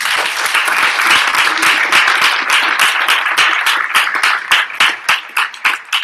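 Small audience applauding. The clapping is dense at first and thins to scattered single claps near the end.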